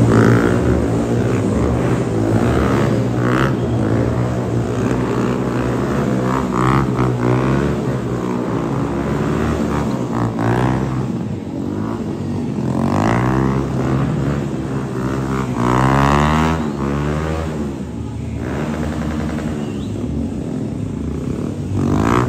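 Several motorcycle engines running and revving together, their pitches rising and falling and overlapping as the bikes ride past.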